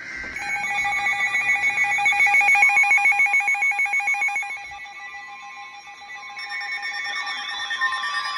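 Emergency alert attention signal for a severe thunderstorm warning: an electronic alarm of several high tones pulsing rapidly, ringing like a telephone bell. It eases off for a couple of seconds past the middle, then comes back with a warbling tone added near the end.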